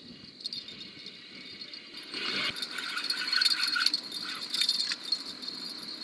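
Fishing reel being cranked against a heavy load: a scratchy mechanical rattle that starts about two seconds in and comes in uneven surges. Crickets chirp steadily behind it.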